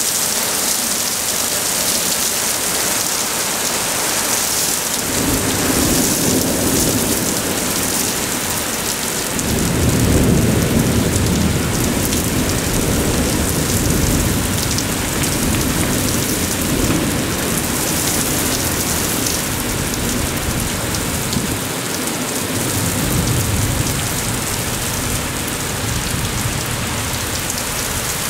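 Heavy rain pouring down steadily, with rolling thunder coming in about five seconds in, loudest around ten seconds, and a second swell of rumbling later on.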